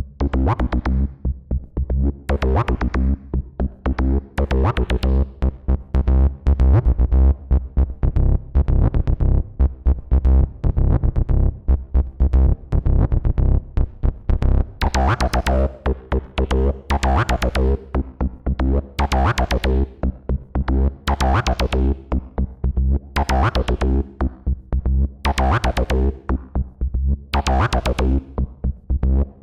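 Behringer TD-3-MO analog bass synthesizer playing a fast sequenced acid bassline in the TB-303 style, with a squelchy resonant filter. Over the second half the filter opens into bright swells that come and go about every two seconds.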